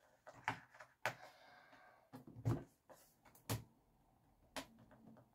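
Fingernails picking at stubborn packing tape on a cardboard box: faint sharp clicks and taps about once a second, with a brief scraping rasp after the second one.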